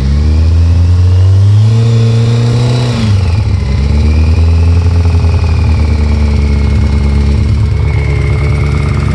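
Kawasaki ZX-14's inline-four engine revving: the pitch climbs for about three seconds, drops sharply, then holds steady at raised revs. It has the engine knock that the owner puts down most likely to a spun bearing on the number 3 cylinder, with the cam chain tensioner as the other suspect.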